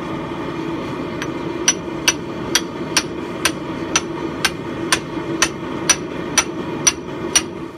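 Hammer blows on a steel drift driven through the hot eye of a forged axe head, about two sharp ringing strikes a second, starting about a second and a half in. The eye is being opened out and shaped. A steady rumbling noise runs underneath.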